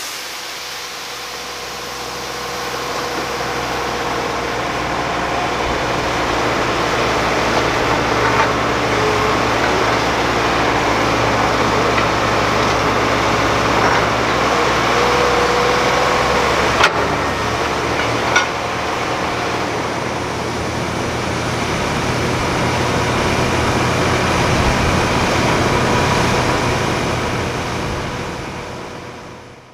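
Truck-mounted borewell drilling rig running steadily, its engine and drill head making a continuous loud machine noise. Two sharp metallic knocks come about two-thirds of the way through.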